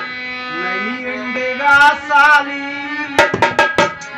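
Rajasthani folk music: a harmonium holds a steady drone under a wavering melody, then a dholak drum plays a quick run of about half a dozen strokes a little after three seconds in.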